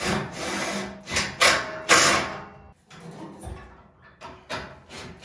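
Metal scraping and clunking as a heavy winch bar is shifted onto its mounts, a few loud scrapes in the first two seconds, then quieter knocks.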